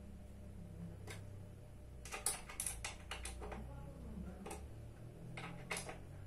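Scattered light clicks and taps from hands and a tool working on the metal underside of an office chair's seat, most of them bunched together in the middle, over a low steady hum.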